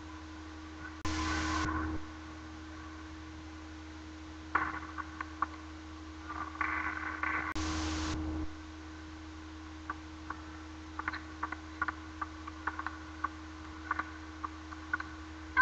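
Table tennis rallies: the celluloid ball clicking sharply off bats and table, with a long rally of quick, irregular clicks in the second half that ends on a loud hit. Two short bursts of applause fall between points, over a steady electrical hum.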